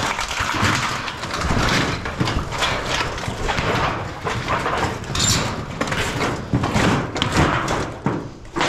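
Corrugated tin roofing sheets being pulled back and shifted on a pile, the metal rattling and clanking in a continuous run of irregular knocks.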